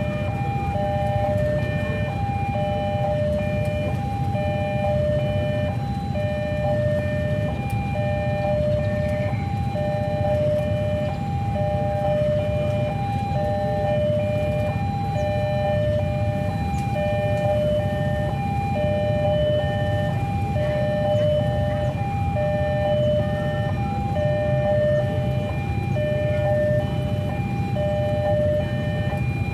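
Railway level-crossing warning alarm sounding without a break: an electronic two-tone signal alternating high and low, about one high–low pair every 1.3 seconds, over a steady low rumble. The alarm is the sign that the crossing is closed for an approaching train.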